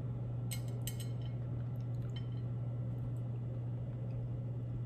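A steady low hum with a few light clicks and clinks, about half a second and a second in and once more near two seconds. The clicks are long fingernails and fingers knocking against a clear tray while picking up a piece of sushi roll.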